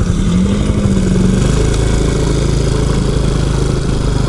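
Honda Super Cub newspaper-delivery model's small single-cylinder engine running while the bike is ridden along a town road. Its note rises slightly and holds, then drops to a lower steady note about a second and a half in, with road and wind noise underneath.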